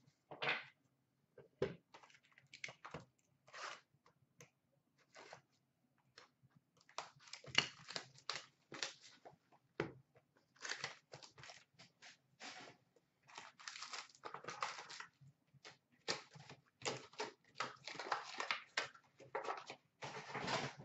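Foil trading-card pack wrappers being torn open and crinkled, with cards handled in the hands. A run of short rips and rustles, sparse at first and busier from about seven seconds in.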